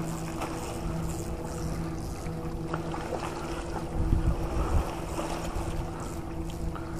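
Steady drone of a motorboat engine across the water, with wind buffeting the microphone briefly about four seconds in.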